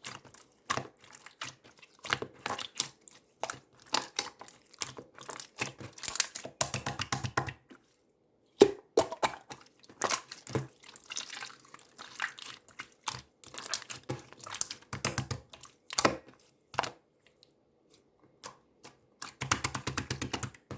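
Clear slime being squeezed, pressed and stretched by hand, giving irregular sticky clicks, small pops and wet squelches in quick runs with short pauses.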